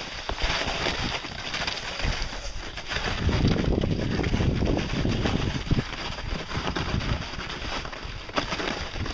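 Footsteps crunching on hard-packed snow in boots fitted with Kahtoola MICROspikes, with a plastic pulk sled scraping along behind on its tow poles. A low wind rumble on the microphone grows louder from about three seconds in.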